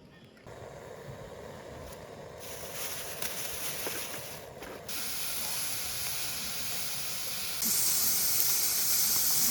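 A steady rushing hiss that gets louder in abrupt steps several times.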